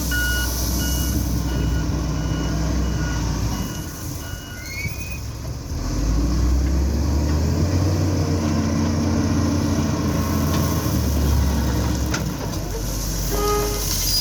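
Diesel engine of an XCMG ZL50GN wheel loader working under load, with a reversing alarm beeping steadily about every half second for the first five seconds. The engine eases off briefly, then pulls hard again for several seconds.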